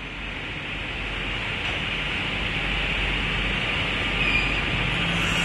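Sliding panel table saw running with its blade spinning: a steady whirring hiss over a low hum, growing steadily louder.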